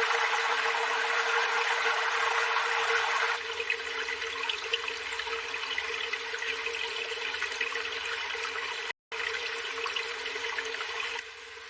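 Running water: a steady rushing hiss that drops in level suddenly about three seconds in, breaks off for a split second later on, and drops again near the end.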